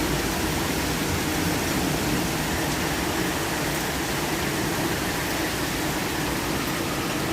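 Torrential rain pouring down in a thunderstorm, a steady dense hiss.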